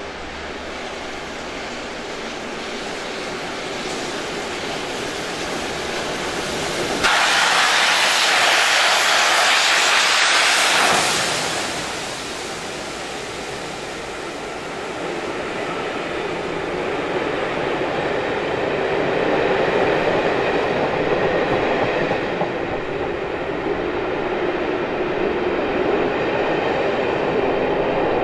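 Three-cylinder steam locomotive 60163 Tornado working a passenger train, its sound building as it approaches, then a sudden loud hissing rush for about four seconds as the engine passes, followed by the steady rolling rumble and wheel clatter of the coaches running by.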